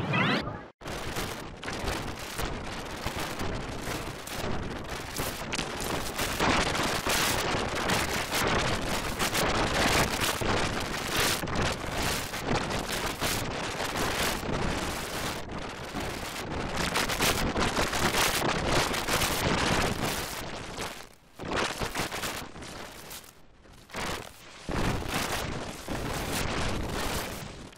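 Harsh, heavily distorted digital noise from editing effects, dense and unpitched, pulsing with sudden strokes about one or two a second. It drops out briefly a few times near the end.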